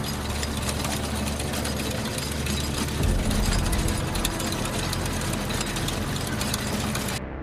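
A steady engine-like drone sound effect with a fine rapid rattle, growing heavier in the low end about three seconds in and cutting off suddenly near the end, over faint background music.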